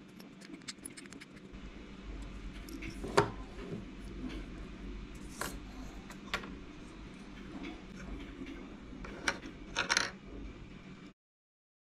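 Scattered light clicks and taps of small plastic electronic parts and jumper wires being handled and set down on a desk, the loudest about three seconds in and a short cluster near the end. The sound then cuts off to dead silence.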